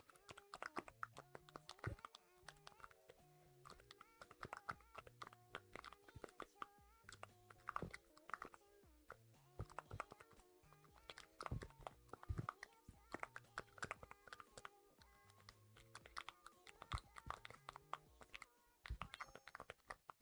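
Faint background music: a short bass phrase repeating under a stepping melody, with scattered light clicks.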